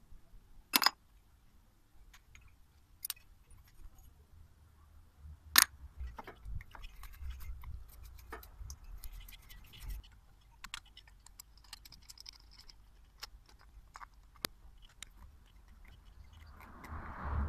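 Motorcycle rear brake caliper and pads being handled by gloved hands: scattered clicks and light knocks of metal parts, two sharp clicks standing out about a second in and about five and a half seconds in, and a short rustle near the end.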